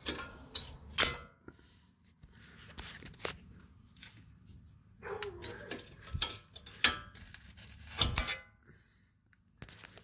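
A screwdriver prying and scraping at the steel retaining clip on a rear brake caliper, with irregular metal clicks and clanks as the tool slips and catches; the clip is stubborn and hard to get off.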